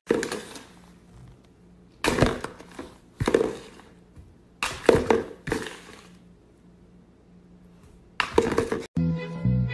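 Plastic flower pot knocked and scraped on a granite countertop: a handful of short knocks at uneven gaps, with a longer one near the end.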